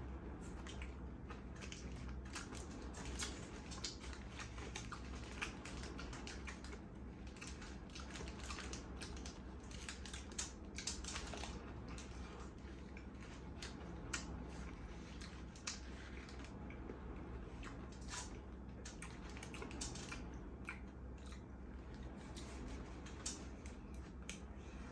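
Close-miked chewing and biting of a Burger Benjo, a spicy egg burger: many irregular soft, wet mouth clicks and crunches. A steady low hum runs underneath.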